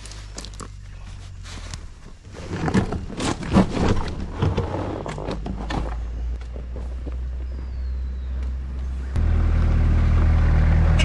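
A motor vehicle engine running steadily at a low pitch, under a run of sharp clicks and scrapes of riding gear being handled in the first half. About nine seconds in the engine sound suddenly gets louder.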